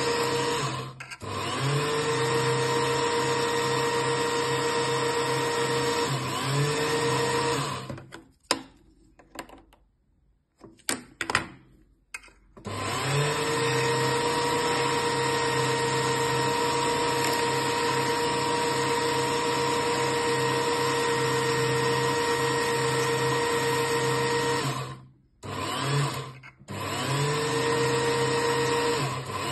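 Bench-top mini lathe's electric motor running with a steady whine while a bead is turned. It cuts out for a few seconds around the middle, with a few sharp clicks in the gap, and stops again briefly near the end. Each time it restarts, the whine rises in pitch as the motor spins back up.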